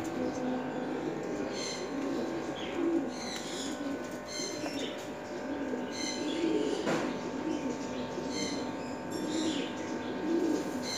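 Caged domestic pigeons cooing over and over, with short groups of high chirps from smaller birds recurring throughout.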